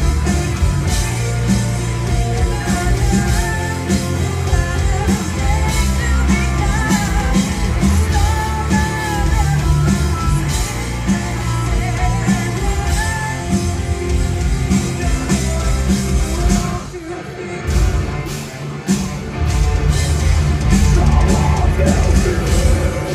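Live rock band playing loudly: a woman singing over electric guitar, bass and drums. The music thins out briefly about three-quarters of the way through, then comes back in full.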